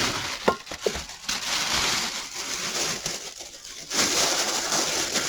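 Scraping and rustling as a part is worked off an old rice cooker being taken apart, with two sharp clicks about half a second and one second in and a louder burst of scraping about four seconds in.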